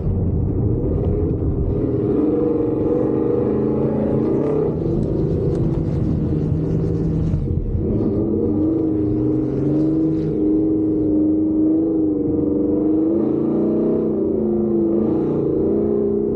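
Truck engine under load while driving on a dirt course, its pitch rising and falling as it revs. There are shifts near the middle and about three quarters of the way through.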